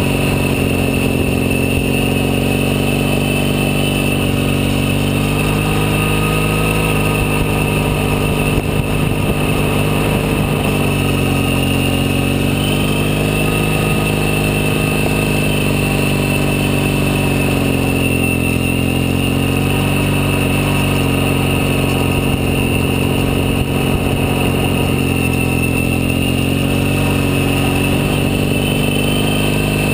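Triumph Thruxton's parallel-twin engine running steadily while riding, its pitch dipping and rising gently every few seconds.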